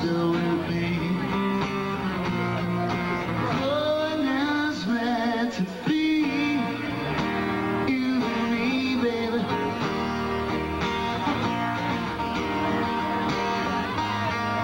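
Rock band playing an unplugged set: strummed acoustic guitars under a male lead vocal singing a slow, bending melody.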